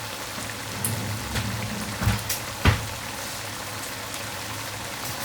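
A pan of shrimp in watery tomato sauce bubbling and sizzling on the stove, with a few sharp clicks and knocks of kitchen tongs against the pan, the loudest nearly three seconds in.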